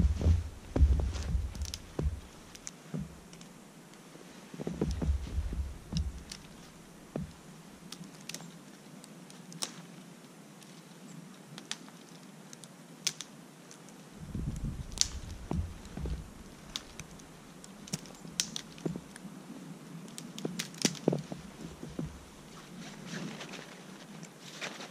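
Dry twigs snapping and pine branches rustling as small dead twigs are broken off for a tinder bundle: scattered sharp cracks and clicks at an irregular pace.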